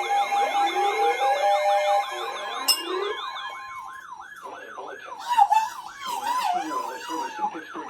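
Several electronic sirens sounding over one another: fast yelping sweeps and slower rising wails, with a pulsing steady tone that stops about two seconds in. A short click comes a little later, and the sirens swell again past the middle.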